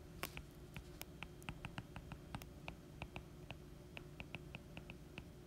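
Faint, irregular ticks and taps of a stylus on a tablet screen during handwriting, several a second.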